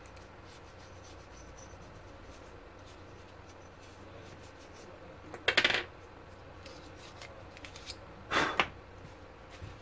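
Toothbrush bristles scrubbing dust off a laptop CPU fan's plastic impeller blades: faint brushing, then two short, loud rattling scrapes about five and a half and eight and a half seconds in.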